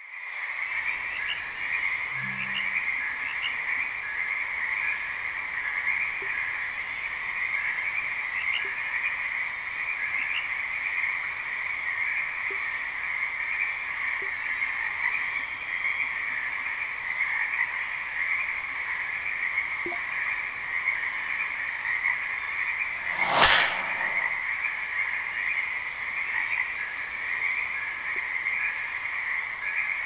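Night-time frog chorus, a dense steady chirring, playing as the ambient soundscape of an Apple Vision Pro immersive environment. One sharp click sounds about three quarters of the way through.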